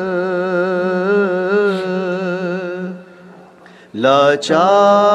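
A voice singing a Sufi nasheed, holding a long note with vibrato. The note breaks off about three seconds in, and after a short pause a new note slides up into place and is held steady to the end.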